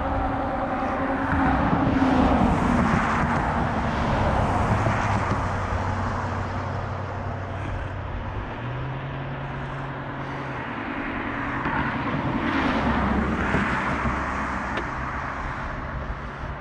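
Road traffic passing close by: two vehicles go past, loudest about two seconds in and again near the end, their engine hum dropping in pitch as each one passes.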